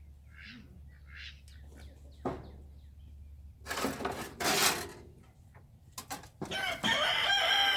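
Two short scrapes of a tool digging into packed coop bedding, with a knock before them and faint chicken calls in the background; near the end a rooster crows, one long, loud call.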